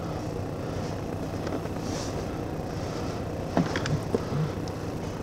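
Patrol car idling with a steady low rumble, and a few light knocks about three and a half to four and a half seconds in.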